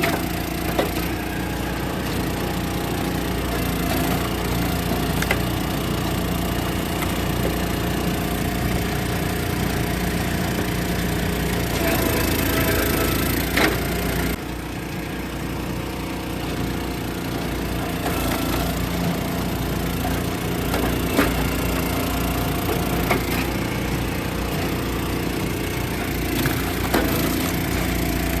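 Hydraulic log splitter's small gas engine running steadily while the wedge splits ash rounds. Sharp cracks of wood splitting come several times, near the middle and toward the end.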